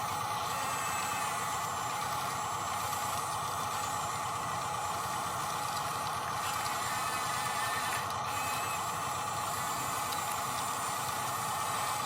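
Small electric drive motors and gearboxes of a radio-controlled construction model running steadily, with a continuous whine.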